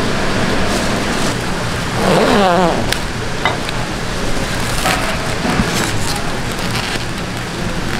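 Plastic cling film rustling and crinkling as a sashimi plate is handled and wrapped, over a steady noisy background hiss, with a few sharp clicks and a brief sweeping sound about two seconds in.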